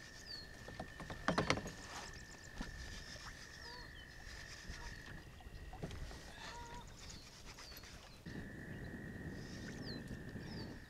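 Outdoor lake ambience: birds repeatedly give short falling chirps over a steady high-pitched buzz that drops out for a few seconds in the middle. There is a single knock about a second and a half in, and a soft rushing of water or wind near the end.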